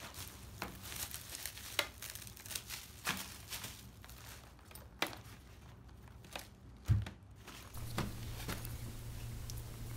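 Clear plastic wrap being torn off a reel of coaxial cable and crumpled, in faint scattered crinkles and crackles, with one soft thump about seven seconds in.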